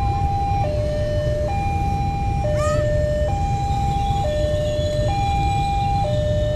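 Railway level-crossing warning alarm sounding an electronic two-tone signal, a higher and a lower note alternating about once a second, the warning that a train is approaching. Under it runs the low rumble of traffic, and a brief rising squeal comes about two and a half seconds in.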